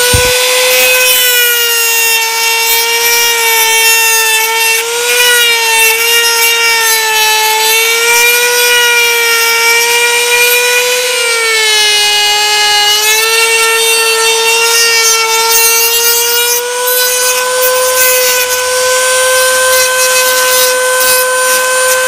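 Dental lab rotary handpiece with an acrylic bur grinding down the acrylic of a Bionator orthodontic appliance, running at a steady high whine. The pitch wobbles a little and dips briefly about halfway through before settling again.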